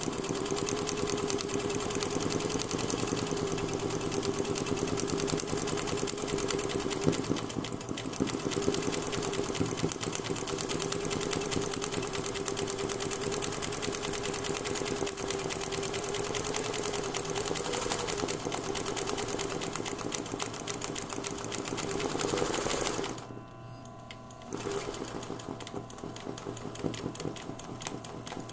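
Domestic sewing machine stitching free-motion embroidery at high speed, a steady fast whir of needle strokes. It stops briefly near the end, then runs on more quietly.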